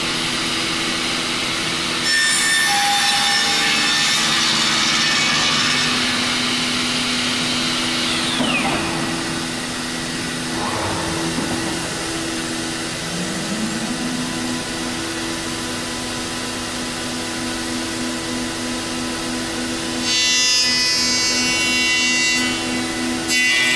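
Biesse Rover 35 CNC machining centre routing a solid-wood door frame piece: a steady spindle whine, with louder cutting passes about two seconds in and again near the end. The pitch falls about eight seconds in and climbs again around thirteen seconds.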